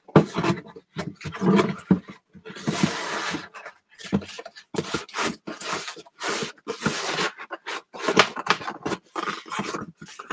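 A cardboard shipping box and the item being handled and test-fitted, making a quick series of rustles, scrapes and knocks. A longer scraping rustle comes about three seconds in.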